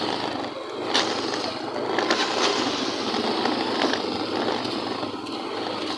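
Small motorcycle running at low speed along a rough street, with a few short knocks from the bike going over bumps.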